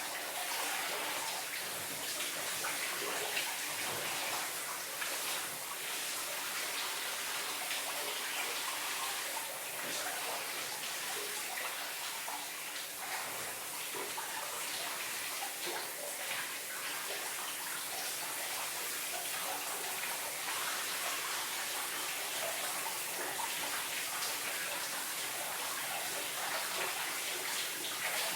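Shower running: a steady spray of water splashing in a bathroom, its splash shifting slightly from moment to moment as someone showers under it.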